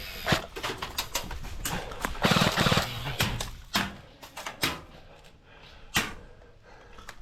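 Airsoft guns firing: a short rapid burst of clicks about two seconds in, with scattered single shots and knocks before and after.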